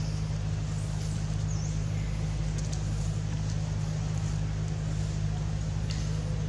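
A steady low motor hum at an even level throughout, with a few faint high chirps on top.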